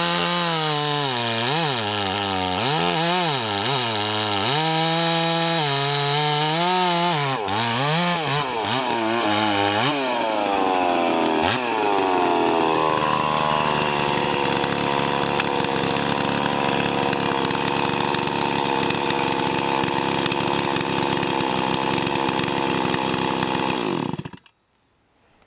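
Farmertech/Huztl MS 440 clone-kit two-stroke chainsaw cutting through a big log round, its engine speed rising and sagging under load. About ten seconds in, the engine speed changes as the cut finishes, and the saw settles to a steady idle. It shuts off abruptly near the end.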